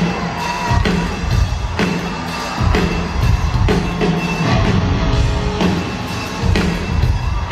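Live rock band playing loud in an arena, drums hitting a heavy beat about once a second under the band's sustained sound.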